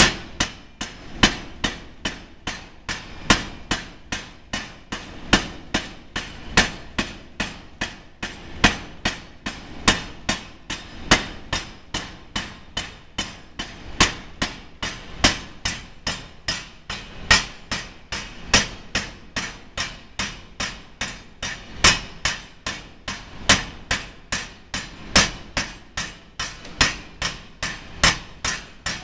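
5cwt Massey power hammer striking red-hot steel in a steady run of sharp blows, about three a second, the hammer driver holding it to short dead blows as a solid ring is forged out on a mandrel.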